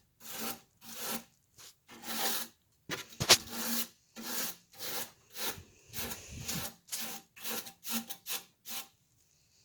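Rapid back-and-forth scrubbing strokes, about two a second, rubbing caked dust and dirt off a window air conditioner's coil; the strokes stop about nine seconds in.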